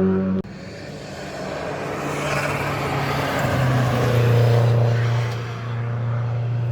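A historic racing car's engine under power as the car approaches and passes on a hill-climb road, loudest about four seconds in and fading away near the end. The end of the previous car's pass is cut off about half a second in.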